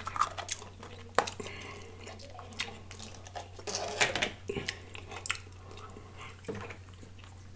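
Close-miked eating mouth sounds: lip smacks and finger licking, scattered short wet clicks clustered around the middle. Near the start, a small plastic sauce cup clicks as it is handled and set down. A faint steady low hum runs underneath.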